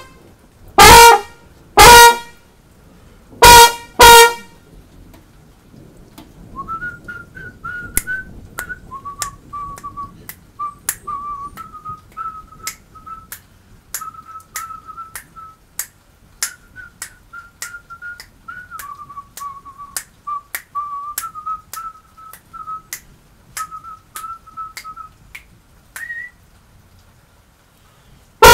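Trombone played in four short, loud blasts on a high note in the first few seconds, and once more right at the end. In between, a person whistles a quiet tune for about twenty seconds, with many sharp clicks scattered through it.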